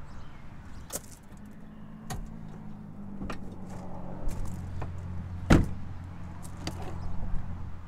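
Car doors of a 2000 Jeep Cherokee being handled: scattered clicks and knocks, a door shutting hard about halfway through, then latch clicks as the rear door is opened near the end. A steady low hum runs underneath from about a second in.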